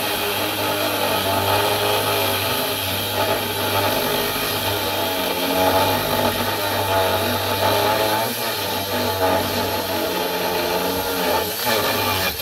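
Angle grinder running continuously on the steel underside of a ute, its whine wavering in pitch as the disc bites into the metal.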